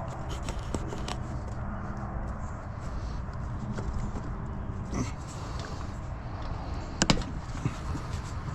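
Small clicks and taps of pliers working the spring hose clamps and rubber fuel hoses of a lawn mower's inline fuel filter, with a sharper click about five seconds in and another about seven seconds in. A steady low hum runs underneath.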